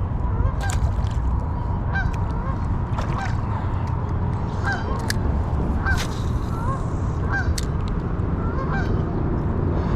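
Birds calling: a dozen or so short calls that hook upward in pitch, scattered irregularly, over a steady low rumble, with a few sharp clicks.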